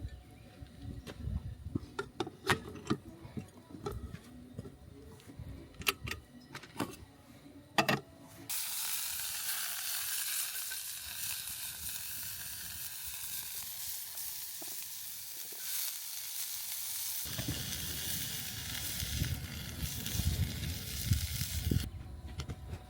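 Food sizzling in a hot pan, a steady hiss that starts abruptly about eight seconds in and cuts off shortly before the end. Before it, scattered clicks and knocks, as of utensils and cookware being handled.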